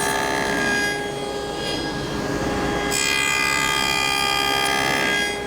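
Table saw running a dado stack, cutting the center finger of a finger joint in a solid cherry skirt on a dado sled. The steady whine grows louder during two cutting passes, one ending about a second in and the other running from about halfway to near the end.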